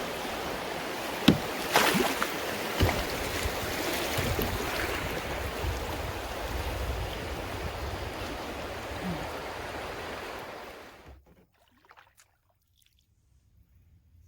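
Steady rushing noise of moving water and wind, with a few sharp knocks in the first three seconds; it cuts off abruptly about eleven seconds in, leaving near silence.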